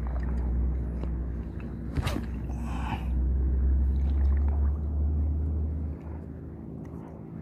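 Boat engine running with a steady low drone, easing off about six seconds in; a single sharp click about two seconds in.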